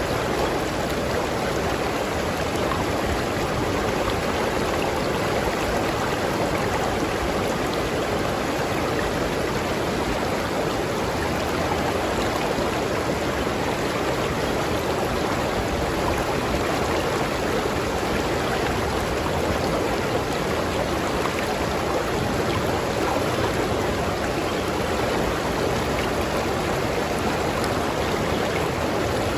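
Tropical river stream flowing steadily over rocks, an even, unbroken rush of water.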